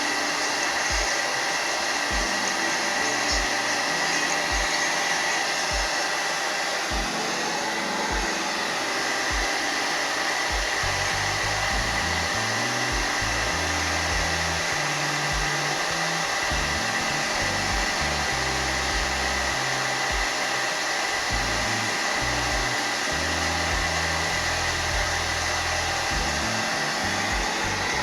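Hair dryer blowing steadily, with a steady whine running through it, over background music with a regular low beat.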